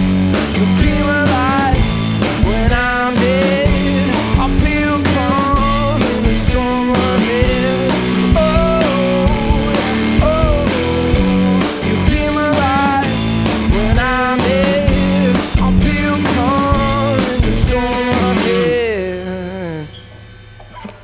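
A blues-rock duo playing electric guitar and drums to the close of a song; the last chord rings out and dies away about nineteen seconds in.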